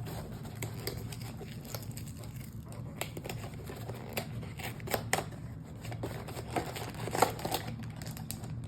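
Blind-box toy packaging being torn and unwrapped by hand: irregular crinkling, rustling and small clicks, busiest and loudest near the end, over a low steady hum.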